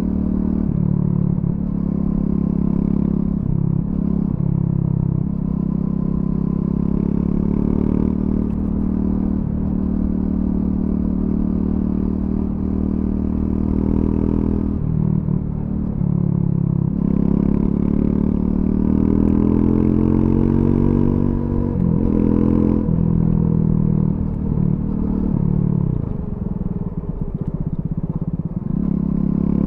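Triumph Scrambler 400X's single-cylinder engine through its stock exhaust, riding under way. The revs rise and fall with short dips at gear changes, and there is one longer climb in pitch about two-thirds through that drops off sharply.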